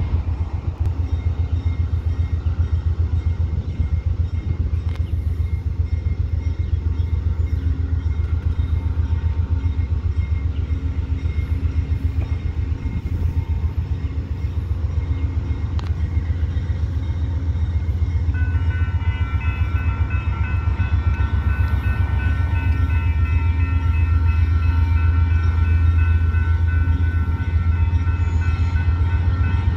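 Steady low rumble of an approaching Amtrak train led by a GE P42 diesel locomotive. About eighteen seconds in, a grade-crossing warning bell starts ringing steadily as the crossing signals activate.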